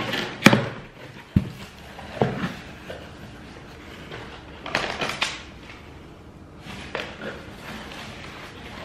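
Cardboard shipping box being opened by hand: its flaps are pulled back, with cardboard rustling and scraping in a few short spells. There is a sharp snap about half a second in and a dull thud shortly after.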